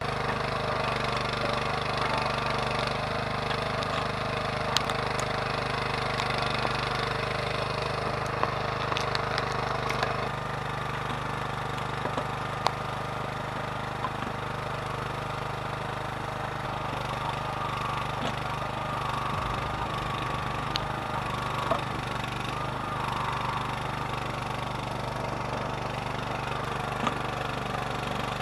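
Engine of a stump- and root-pulling machine running steadily, with a few faint knocks and clicks over it.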